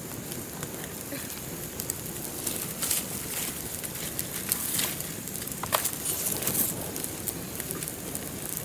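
Open wood fire burning with a steady hiss and scattered sharp crackles and pops.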